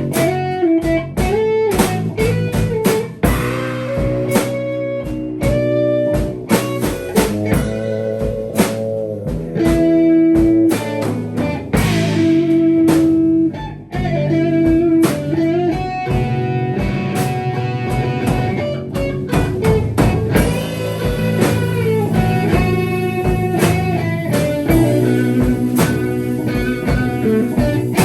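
Improvised band music: guitar holding and bending notes over a drum kit, with frequent sharp drum strikes.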